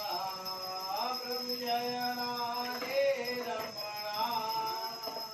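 Music with a singing voice holding long, drawn-out notes.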